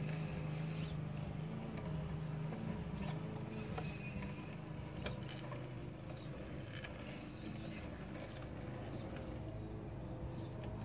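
Model Fairburn tank locomotive running on DC power: the electric motor and gears whir steadily, with occasional light clicks from the wheels on the track.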